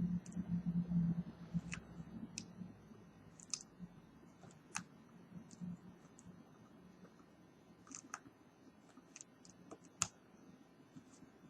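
Scattered small clicks and ticks of plastic prying cards and picks working between a smartphone's glass and its display, with a low hum and handling noise in the first couple of seconds.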